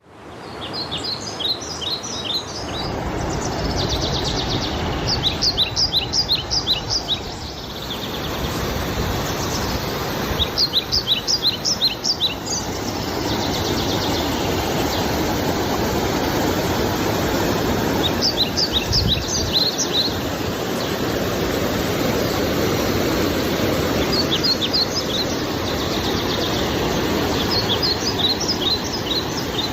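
Steady rush of a small waterfall, with a songbird singing a short run of quick high notes six times, about every five or six seconds.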